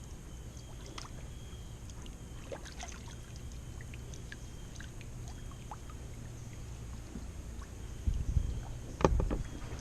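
Kayak sitting on calm water: small drips and light knocks against the hull over a steady low rumble. Heavier low bumps come in about eight seconds in.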